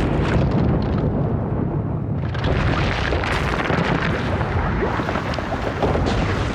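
Lava meeting seawater: a steady deep rumble with dense crackling and popping, the crackle growing sharper about two seconds in.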